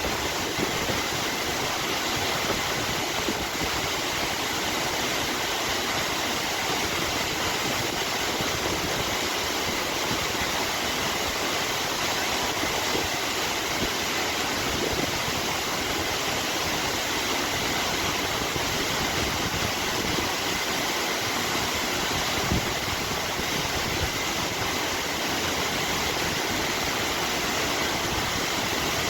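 Steady, even rush of falling water from a high mountain waterfall, with a single brief knock about three-quarters of the way through.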